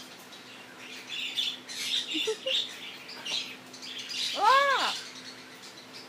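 Yellow-headed amazon parrot making a string of soft, scratchy chirps and squeaks, then about four and a half seconds in one loud drawn-out 'oh'-like call that rises and falls in pitch.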